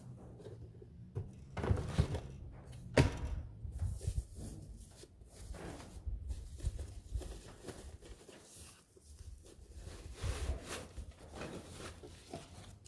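Cardboard box and packaging being handled: several knocks and thuds, the sharpest about three seconds in, with rustling and scraping between them.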